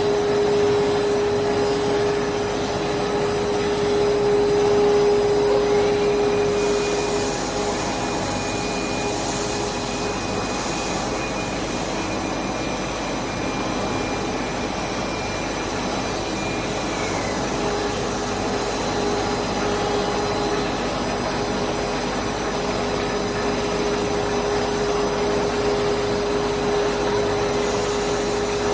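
Steady whirring drone of a running PE cast stretch film production line, its motors and blowers running together with a steady hum tone. A higher, thin whine joins about six seconds in and stops some ten seconds later, while the hum tone drops out for about the same stretch.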